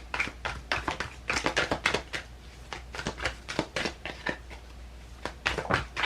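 A deck of tarot or oracle cards being shuffled and handled, a run of sharp, irregular card snaps and clicks with a short lull about two-thirds of the way through.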